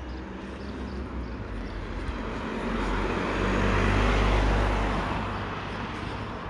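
A car passing along the street: its engine hum and tyre noise swell to a peak about four seconds in, then fade away.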